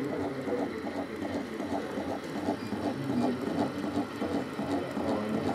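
Model train running on the layout: a steady, rhythmic mechanical beat about five times a second.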